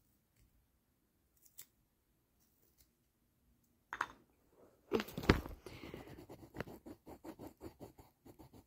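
Close scratching and rubbing right at the microphone. There is a loud bump about five seconds in, followed by quick, repeated scratchy strokes.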